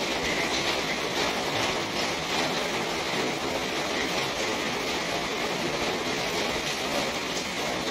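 Steady rain falling, an even hiss with a faint patter of drops.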